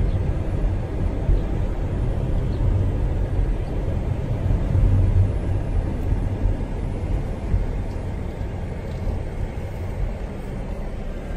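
Car cabin noise while driving slowly: a steady low engine and tyre rumble that eases off in the second half as the car slows for a stop sign.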